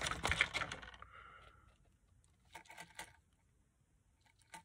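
Thin plastic packaging crinkling for about a second as a jig is worked out of its bag, then a few light clicks and rustles from handling the lure.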